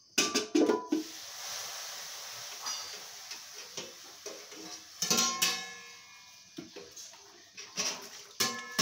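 Stainless steel buckets and lids clanking and ringing as they are knocked and handled. There is a quick run of knocks in the first second, more clanks with a metallic ring about five seconds in, and again near the end, with a hiss in between.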